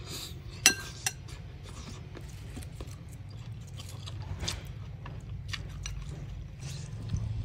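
Metal spoon clinking and scraping against a ceramic bowl, with one sharp ringing clink under a second in and a few lighter taps after it, over a low steady hum.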